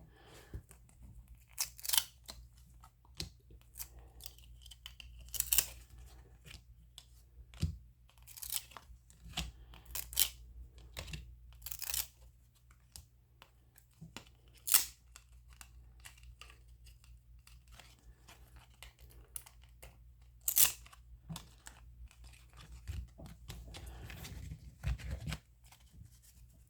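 Baseball cards and foil pack wrappers being handled: scattered short rustles, crinkles and tearing sounds, over a faint steady low hum.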